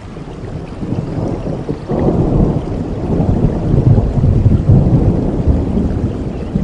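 Rain falling steadily, with a low rumble of thunder that swells about two seconds in and eases off near the end.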